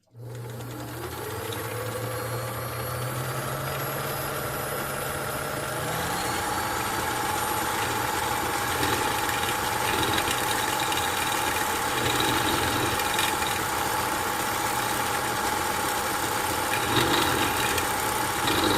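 Kenmore sewing machine's electric motor running the bobbin winder at full speed. It speeds up, rising in pitch, over about the first six seconds, then runs at a steady pitch as the bobbin fills.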